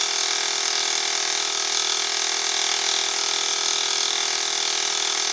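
Benchtop milling machine running steadily, its spindle driving a dovetail cutter through a cast iron cross slide: an even mix of several steady tones over a hiss, with no change in pace.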